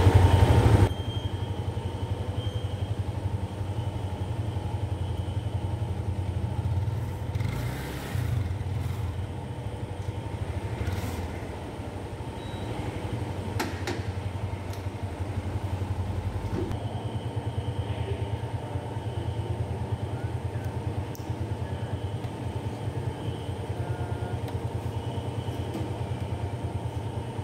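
Freshly assembled Yamaha MX King 150's single-cylinder four-stroke engine running steadily at idle. It is louder for the first second, then drops in level and stays even, with a few light clicks.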